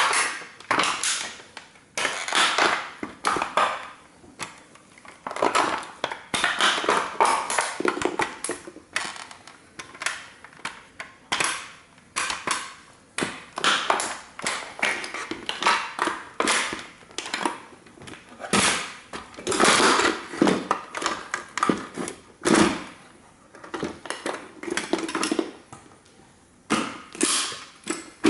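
A 1:18 scale model toy car crunching and cracking under sneaker soles as it is stomped and trampled: a long run of irregular snaps, crackles and crunches, with louder stomps now and then.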